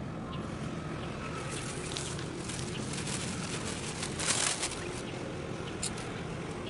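Steady low rumble of ship and tug engines carrying across the harbour water, with a short hiss of noise about four seconds in.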